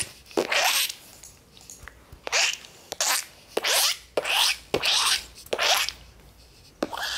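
A person making a faked mouse sound to lure a cat: a run of about eight short, scratchy hisses at uneven spacing.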